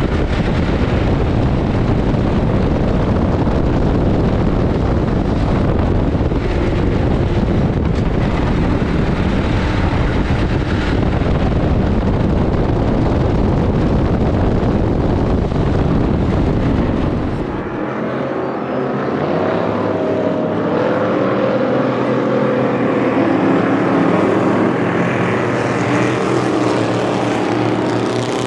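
Ford Crown Victoria dirt-track race car's 4.6-litre V8 running hard at racing speed, heard from inside the stripped cabin as a dense, steady engine drone. About eighteen seconds in the sound switches to a race car heard from trackside, with the engine note rising and falling through the turns.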